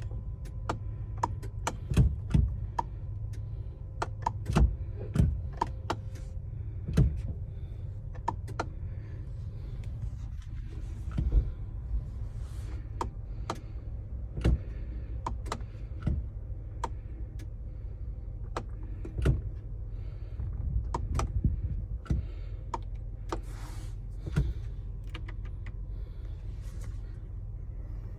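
Irregular clicks and knocks from the key and cab controls of a 2022 Sprinter van being worked, over a steady low hum. The engine does not crank or start.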